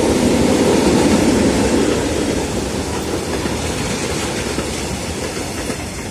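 Tank wagons of a freight train rolling past on steel rails: a steady rumble of wheels on track, loudest about a second in, fading as the last wagons go by near the end.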